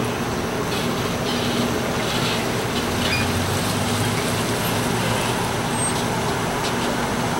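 Road traffic with car engines running as cars wait at the crossing, one pulling up close by, under a steady low hum with scattered faint clicks.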